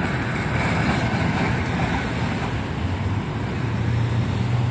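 Steady street traffic noise, with a low hum coming up about three and a half seconds in.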